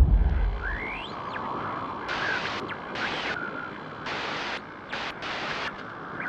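A deep boom dying away into a steady hiss, broken by four short, sharp-edged bursts of louder hiss about a second apart.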